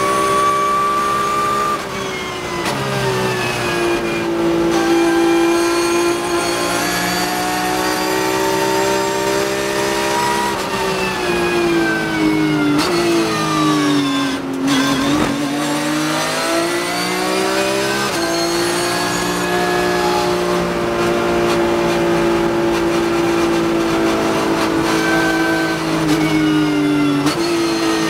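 Porsche 911 GT3 Cup (991.2) race car's 4.0-litre flat-six engine, heard from the cockpit. It revs high and rising under full throttle, is cut back about two seconds in, and its pitch falls step by step under braking and downshifts to its lowest point about halfway. It then climbs again under throttle and holds fairly steady, with a brief dip near the end.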